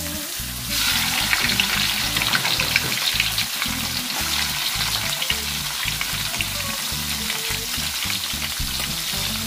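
Hot oil sizzling in an aluminium wok bursts into a much louder, crackling sizzle less than a second in as dried anchovies are dropped into it, and keeps crackling as they fry.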